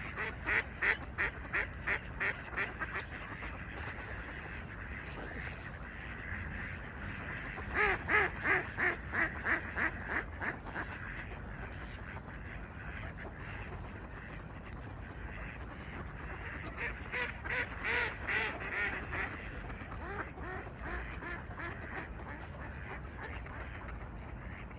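Ducks quacking in quick runs of calls, about four a second, in three bouts: at the start, about eight seconds in, and again around seventeen seconds in, over a steady background hiss.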